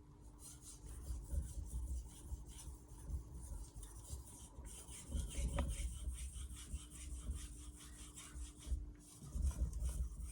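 Stainless steel knife blade stroked back and forth over a Naniwa 2000-grit water stone, used splash-and-go, in a steady run of gritty rasping strokes as a slurry builds up.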